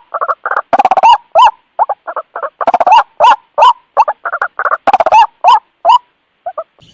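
White-breasted waterhen (ruak-ruak) calling: a fast run of short, repeated calls, several a second, with a brief pause near the end.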